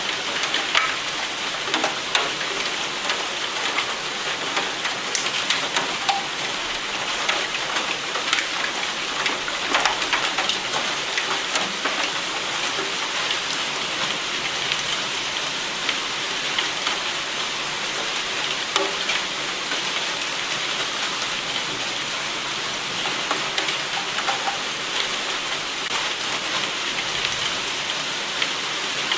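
Steady rain falling: an even hiss laced with many sharp ticks of individual drops striking.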